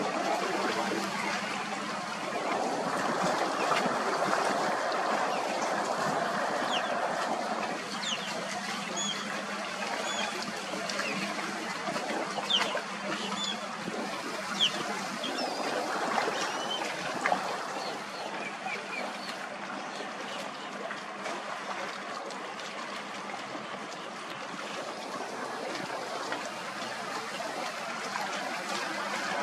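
Waterside ambience: a steady wash of lapping water under a faint low hum, with birds chirping now and then through the middle.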